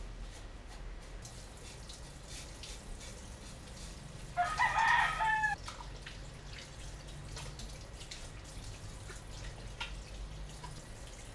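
A rooster crowing once, one call of just over a second about four and a half seconds in, over a low steady hum and a few faint clicks.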